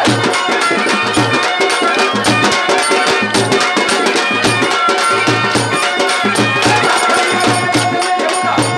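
Live Telugu folk band playing: a large double-headed drum beaten with a stick and hand drums keep a steady rhythm, with jingling percussion over sustained keyboard tones.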